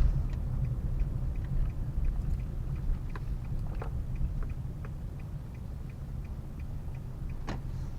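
Steady low rumble of a car's engine and cabin, with a regular faint ticking about three times a second and a few louder clicks, one near the end.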